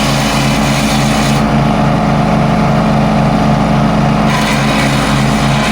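Engine-driven wood chipper running steadily, its engine note throbbing regularly. A high hiss over it drops away for a few seconds in the middle.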